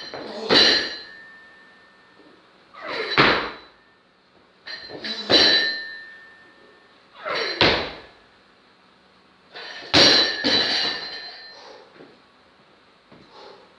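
A loaded barbell with bumper plates hitting the lifting platform again and again: about half a dozen heavy thuds roughly two seconds apart, several followed by a short metallic ring from the bar and plates.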